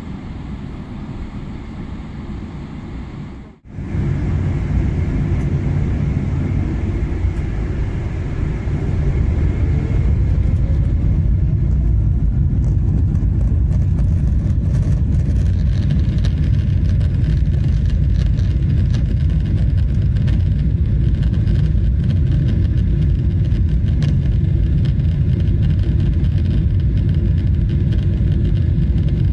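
Jet engines of a Boeing 777-300ER (GE90-115B) heard inside the cabin: a steady low rumble, then, after a cut a few seconds in, a rising whine as the engines spool up, and the rumble grows louder and holds steady, as at takeoff power.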